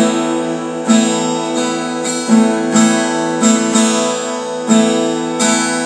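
Acoustic guitar strumming sustained chords, struck afresh about once a second, with no voice.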